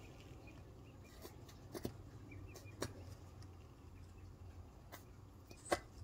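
Faint scattered clicks and taps of small plastic items being handled, about five in all, the sharpest shortly before the end, over a low steady hum.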